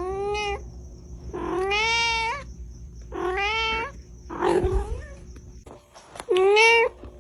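A cat meowing loudly, five long drawn-out meows in a row, the fourth one rougher than the rest.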